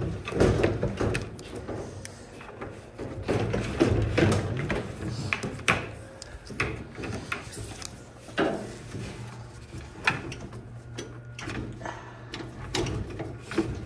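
Irregular clicks, knocks and scraping of metal parts being handled inside an opened clothes dryer, as the drive belt is slipped off the motor and parts are lifted and pulled out.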